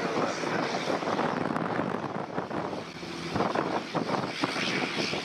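Jet engines of a Boeing 747-400 freighter arriving to land, a steady loud rumble with a rough, crackling edge.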